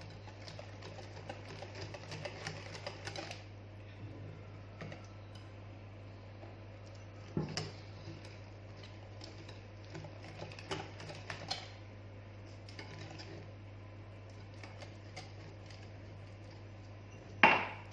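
A utensil clicking and knocking against a mixing bowl as flour is stirred into cake batter. The knocks are scattered and light, with one sharp loud knock near the end, over a steady low hum.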